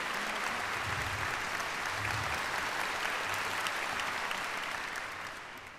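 Concert hall audience applauding, the clapping dying away near the end.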